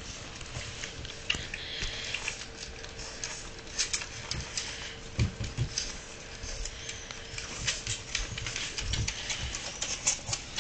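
Chinese Crested, Pekingese and Fox Terrier mix puppies scrabbling and nuzzling under an adult dog: a busy run of small clicks, scratches and patter of paws and claws on a wooden floor, with a few soft bumps.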